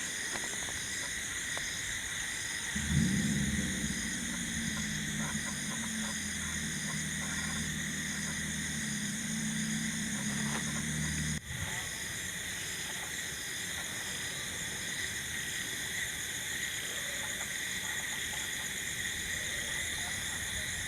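Night-time insect chorus: several steady high-pitched trills at different pitches, one of them pulsing rapidly. From about three seconds in, a low droning hum joins and then cuts off abruptly with a click about eleven seconds in.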